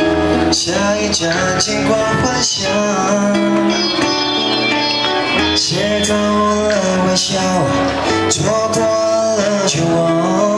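A male singer sings a slow pop ballad live into a handheld microphone over a musical accompaniment with guitar.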